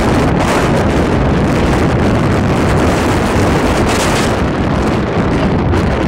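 Storm-force wind buffeting the camera microphone: a loud, continuous rush of wind noise, with gusts about a second in and again about four seconds in.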